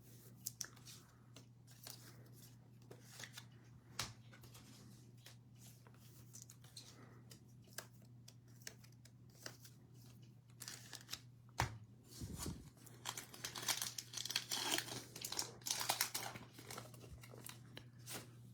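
Cellophane wrapper of a trading-card cello pack being torn open and crinkled, with scattered light clicks of cards being handled before it. A faint steady electrical hum underneath.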